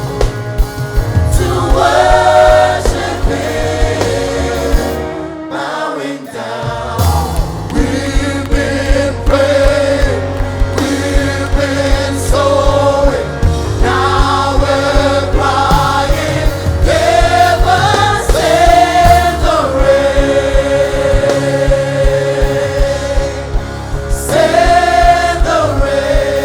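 Live gospel worship music: a choir singing in harmony over a band with steady bass and a regular drum beat.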